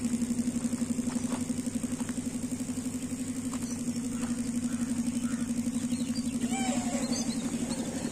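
A small engine or motor running steadily: a low hum with a fast, even pulsing beat. A few short high calls come about two-thirds of the way in.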